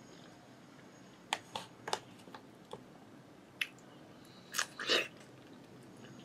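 A metal spoon clicking and scraping against a plastic food box while scooping out peeled kiwi, mixed with biting and chewing. About eight short, sharp clicks are scattered through the middle, and the loudest pair comes just before five seconds in.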